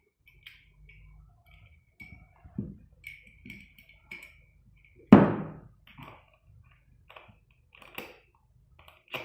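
Aluminium T-slot profile and its fittings being handled: light metallic clicks and taps as a spring T-nut is worked in the slot, with one loud thunk about five seconds in.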